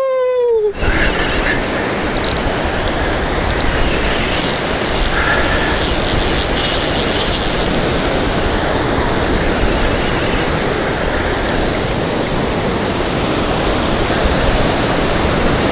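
Steady rush of ocean surf breaking along the beach, with a faint higher hiss for a second or two about midway.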